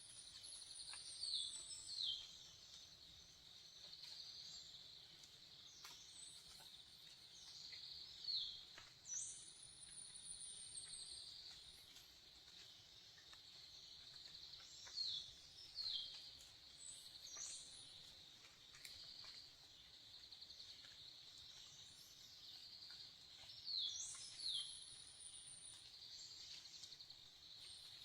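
Forest ambience: a steady insect drone. A bird repeats a short phrase of high, sliding whistles about every eight seconds, four times.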